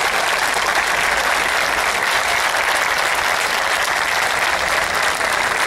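A crowd of football supporters and players clapping together: dense, steady applause.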